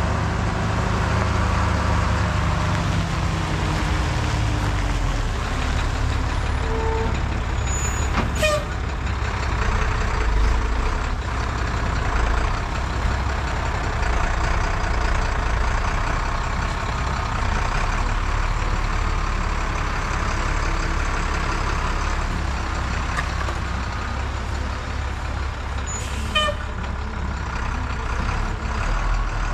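Heavy truck engine running steadily, its pitch dropping over the first few seconds, with two short high squeaks, one about a third of the way in and one near the end.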